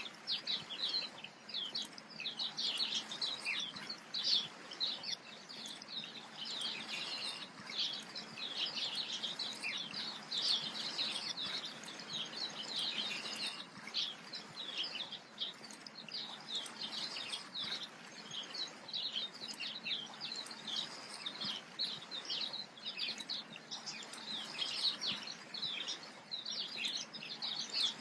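Many small birds chirping at once, a dense, unbroken chatter of short high calls.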